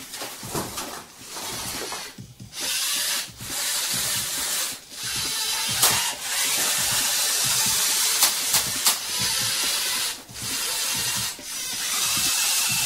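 Small electric motors and plastic gearing of Lego robots whirring in repeated bursts of a second or two as the robots push against each other, with a few sharp plastic clicks.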